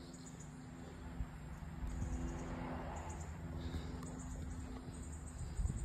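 Quiet outdoor ambience: a faint steady low hum with faint high chirps repeating throughout.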